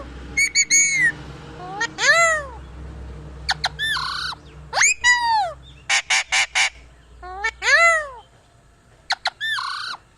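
Parrot squawking over and over: short, shrill calls that rise and fall in pitch, with a quick run of four rasping squawks about six seconds in.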